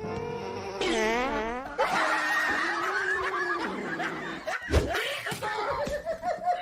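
Laughter, with a sharp thump about four and a half seconds in.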